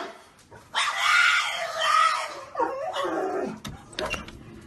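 A dog vocalizing: a long, noisy stretch of sound, then a few sliding cries in the middle, followed by a couple of sharp clicks near the end.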